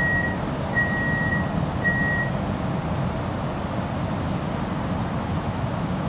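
Door warning beeps on an X'trapolis 100 electric train stopped at a platform: three high beeps about a second apart, then only the steady low hum of the standing train.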